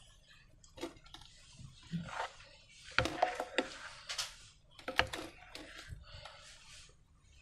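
Hands working slime, with irregular sticky squelches and crackles and two sharper clicks, about three and five seconds in.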